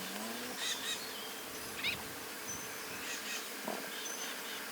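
Flies buzzing around the resting lions, with a short rising buzz near the start as one passes close, and faint short bird chirps in the background.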